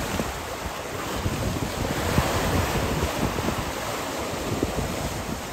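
Strong, gusty wind, gusting to about 44 mph, buffets the microphone with low rumbling, over choppy lake waves sloshing and breaking.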